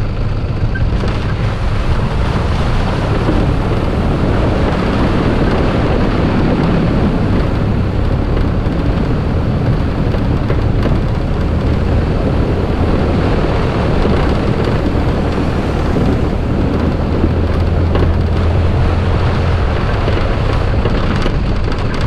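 Toyota Prado four-wheel drive driving along a wet dirt bush track: a steady, loud engine and tyre rumble mixed with heavy wind buffeting on a camera microphone mounted outside over the bonnet.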